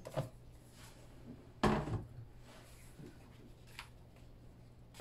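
Paper trimmer handled on a cutting mat: a few light clicks and one louder clunk about a second and a half in.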